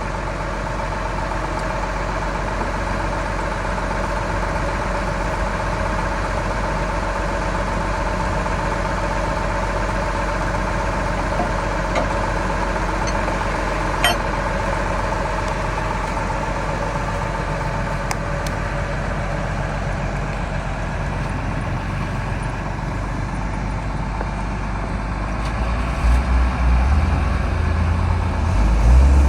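Heavy vehicle engine idling steadily, with a deeper rumble growing louder in the last few seconds. A single sharp click about halfway through.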